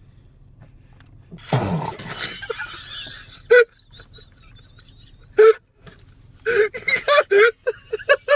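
A person's hiccups: two short, sudden single hics about two seconds apart, then rapid bursts of giggling laughter near the end. About a second and a half in there is a short burst of noise.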